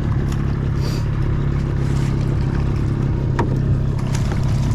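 Boat motor running steadily, a continuous low hum, with a few short clicks over it.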